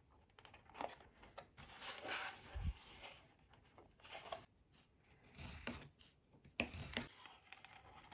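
Hands handling the wooden and painted parts of a model boat's cabin: irregular light rubbing and rustling with small clicks and taps, the loudest about a second in, between two and three seconds in, and near the end.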